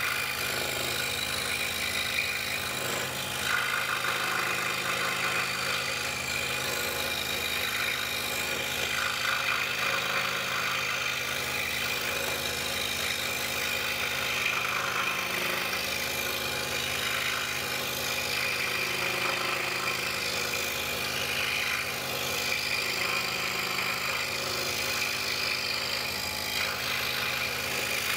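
DeWalt scroll saw running steadily as its blade cuts through a wood blank fed by hand: a constant motor hum under a rasp from the blade that swells and eases as the cut follows the curves.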